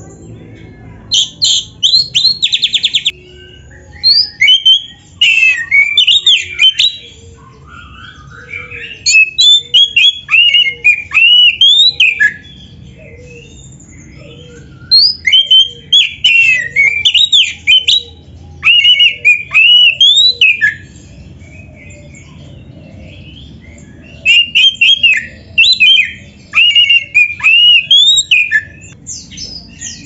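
Oriental magpie-robin singing in loud bouts of a few seconds each, rapid varied whistles that sweep up and down, with short pauses between bouts. A fast buzzy trill comes about two seconds in. The song is worked with canary-style phrases.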